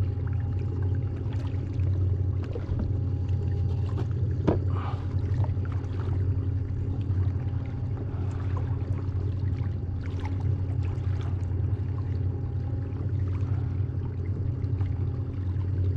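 Kayak under way on the sea: a steady low hum with light water lapping and a few small clicks, one clearer splash or knock about four and a half seconds in.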